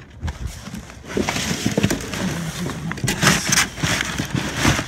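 Plastic trash bags crinkling and rustling as hands rummage through junk in a dumpster, with sharp knocks and clicks of items being shifted, busiest a little past three seconds in and near the end.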